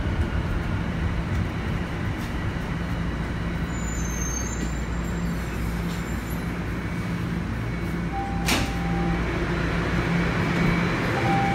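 Subway train running, heard from inside the car: a steady rumble and hum. A short electronic chime tone sounds about eight seconds in, as the doors open. Another chime tone starts near the end.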